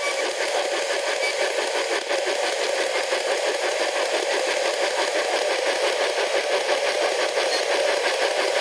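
P-SB11 spirit box sweeping through radio frequencies, its speaker giving out a steady, fast-chopping hiss of radio static.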